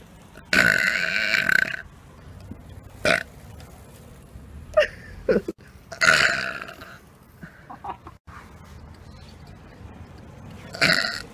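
A person burping loudly, over and over. A long burp of about a second comes first, then shorter ones, another long one in the middle, and a last burp near the end.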